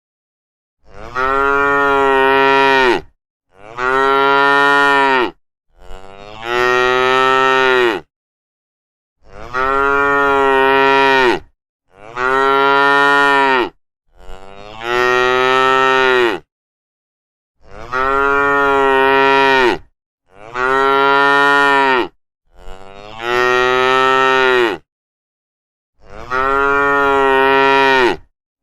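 A cow mooing over and over: about ten drawn-out moos of around two seconds each, with dead silence between them.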